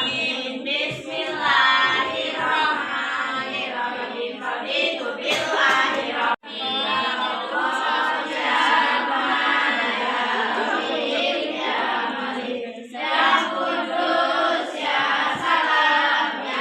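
Background vocal music: a choir singing, with a sudden short break about six seconds in.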